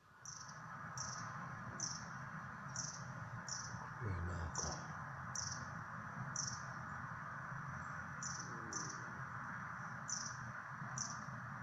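A wild bird calling: short, high notes that drop in pitch, repeated at uneven intervals about once a second or faster, over a steady hiss. A brief low thump about four seconds in.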